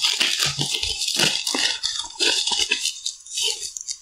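Thin plastic bag crinkling and rustling irregularly as hands pull it open to unpack a headset, with a few dull bumps in the first second and a half.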